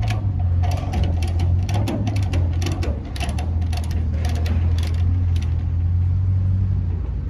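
A heavy truck's diesel engine running with a steady low drone, with irregular clicks and rattles over it.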